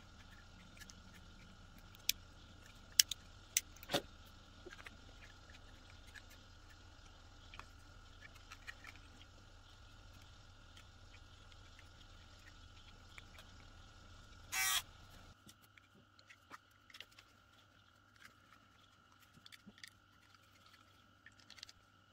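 Small parts of a Wahl cordless detailer trimmer being handled: a few sharp clicks and taps in the first few seconds, then a short scraping rattle about two-thirds of the way in. A low background hum stops just after it.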